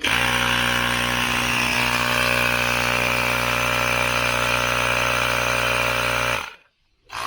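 Small electric air compressor running steadily while inflating a tyre to about 10 psi. It starts abruptly and cuts off about six and a half seconds in.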